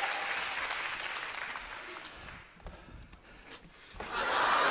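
Studio audience applause fading over the first couple of seconds, leaving a quieter moment with a few faint knocks. About four seconds in, the audience erupts again in loud laughter and applause.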